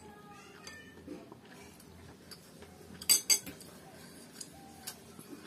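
Metal spoon clinking against a ceramic bowl and plate while serving curry: a quick cluster of sharp clinks about three seconds in, then a couple of lighter taps near the end.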